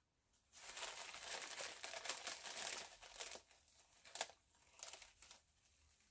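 Clear plastic bag crinkling as hands rummage in it for dried craft moss: a dense run of crinkling for about three seconds, then scattered softer crackles with one sharp crackle in the middle.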